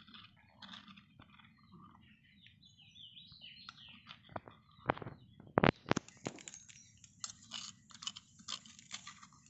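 Metal spoon scraping and knocking against the inside of a small stone mortar while scooping out crushed food, a run of irregular clicks and scrapes with a cluster of sharper knocks about five to six seconds in.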